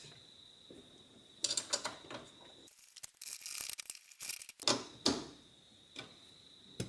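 Plastic tailgate trim and handle parts being handled and fitted: scraping and clicks, with a dense stretch of rapid ratchet-like clicking about three seconds in, then a few sharp clicks.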